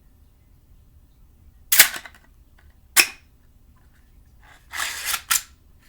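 Hard plastic clacks from a 3D-printed collapsible katana's telescoping segments being flicked out and snapped back: two sharp clacks about a second apart, then a brief sliding rattle that ends in another clack near the end.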